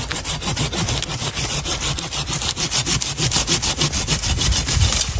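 A saw cutting through a tree branch in quick, even back-and-forth strokes.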